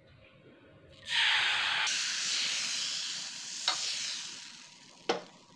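Green pandan crepe batter hitting a hot non-stick pan: a sudden loud sizzle about a second in that fades away over the next few seconds. Two sharp metal knocks follow, the second near the end as the pan goes back onto the gas burner's grate.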